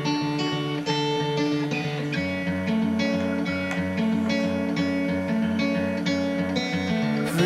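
Background music on acoustic guitar: a steady run of picked notes, with lower notes joining about two seconds in.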